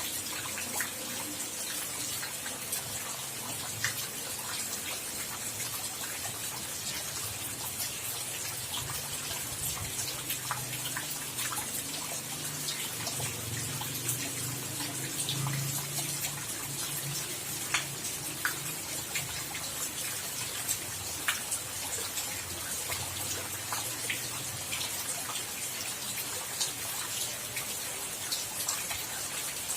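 Steady rain falling, with many separate drops and drips ticking sharply close by and a low rumble underneath.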